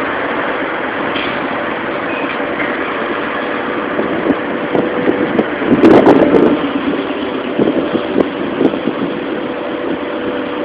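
Automatic gantry car wash running over a car: brushes and water spray make a steady rushing noise over a machine hum. About six seconds in comes a burst of knocking and clattering, the loudest part, with a few more knocks over the next few seconds.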